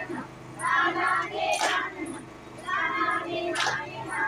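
Women and girls singing a kummi folk song together, with a group hand clap about every two seconds, twice here.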